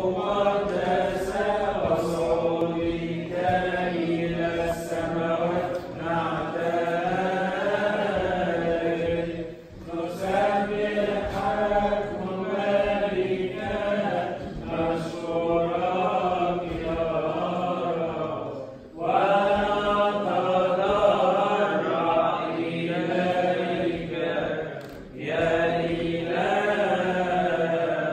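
Unaccompanied Coptic liturgical chant: voices singing a long, drawn-out melismatic line whose pitch slowly wavers and turns, with brief breaths about 10, 19 and 25 seconds in.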